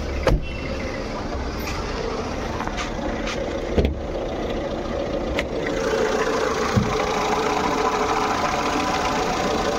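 Jeep Compass diesel engine idling with the loud rumbling ("gad-gad") noise of a failing alternator pulley. It grows louder about six seconds in, as the bonnet is opened. There are a few knocks, the sharpest about four seconds in.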